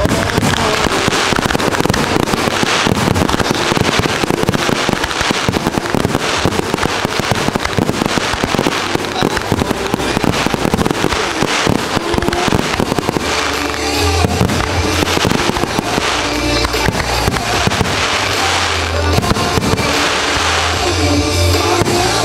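Aerial firework shells bursting in a rapid barrage, a dense run of bangs and crackling that thins out about halfway through, with music playing alongside.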